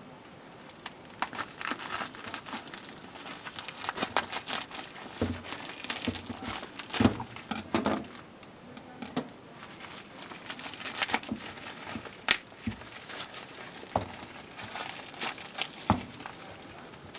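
Packaging being handled during a smartphone unboxing: plastic and paper crinkling and rustling in irregular bursts, with a few sharp knocks and taps.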